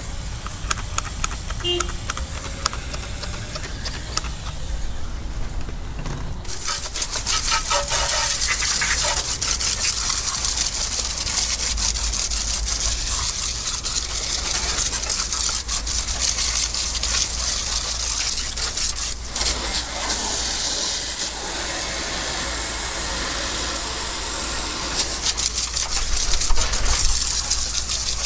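Liquid spraying from a nozzle onto an outboard motor during degreasing: a steady, loud hiss that starts suddenly about six seconds in and runs on, dipping briefly once, after a quieter start with scattered clicks.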